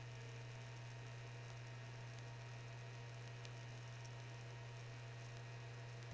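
Steady low electrical hum with a faint hiss under it, mains hum of the kind a webcam microphone picks up.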